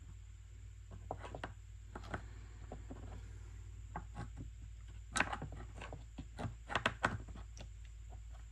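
Scattered light clicks and knocks of a new saw chain and bar being handled and fitted onto a Stihl MS 250 chainsaw, loudest in a cluster about five to seven seconds in.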